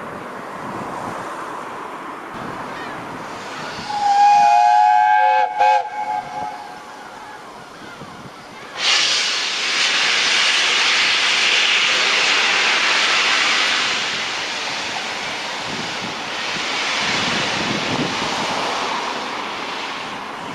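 Steam locomotive 60163 Tornado, a Peppercorn A1 Pacific, sounds its whistle about four seconds in: one blast of about a second and a half, then two short toots. A few seconds later loud steam hissing starts suddenly and continues, easing somewhat after about five seconds.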